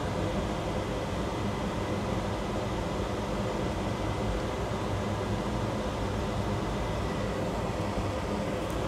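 Steady mechanical hum and hiss, with a short click at the very end.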